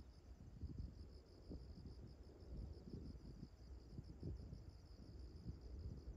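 Faint insect chirping, a steady pulsing trill repeating several times a second, over a low, uneven rumble.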